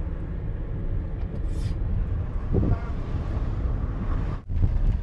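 Steady low engine and road rumble heard from inside a moving car's cabin, with a short dropout near the end.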